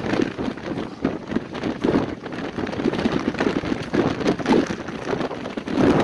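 Gusty wind buffeting a smartphone's microphone: a loud, rough rushing that swells and drops with the gusts.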